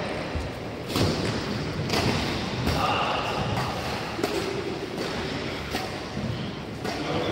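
Badminton rally: several sharp smacks of rackets hitting a shuttlecock, roughly one to two seconds apart, in a large hall.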